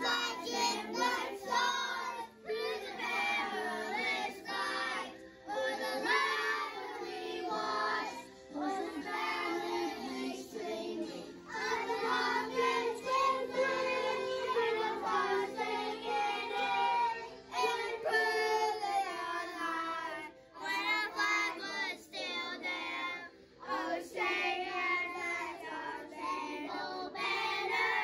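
A group of young children singing a song together in unison, phrase by phrase with short breaths between lines.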